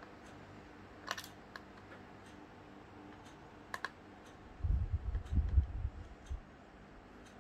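Hands working on an opened laptop with small tools and parts: a few light clicks, then a burst of low knocks and bumps about four and a half seconds in, the loudest sound. A faint tick sounds about once a second throughout.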